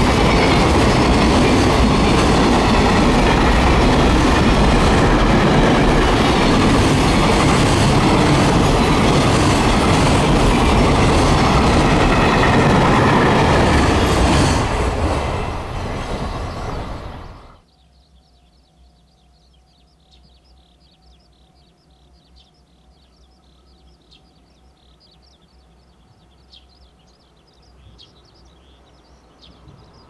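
Container freight train wagons running past close by: a loud, steady rumble and clatter of wheels on rail. It fades as the last wagons go by, then drops away suddenly at about 17 seconds to faint, high chirping.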